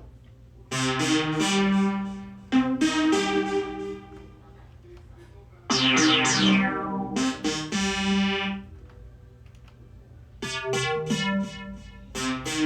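Synthesizer preset tones from a Korg RK-100S-series keytar, played in short phrases of a few notes with pauses between them. One phrase, about six seconds in, has a bright sweep that slides downward.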